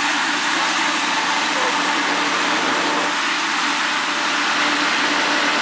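Severe squall-line winds rushing through trees, a loud, steady noise with no let-up.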